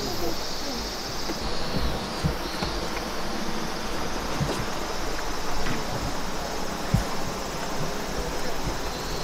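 Steady outdoor ambience: insects droning over an even hiss, with a few soft low thumps, the strongest about seven seconds in.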